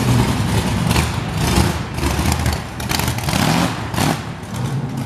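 Gasser-style drag car's engine running at low revs as it pulls away, with a few short blips of throttle.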